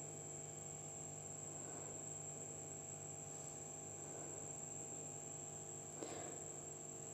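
Faint, soft sounds of bread dough being kneaded by hand on a floured stone countertop, a little louder about six seconds in, over a steady electrical hum.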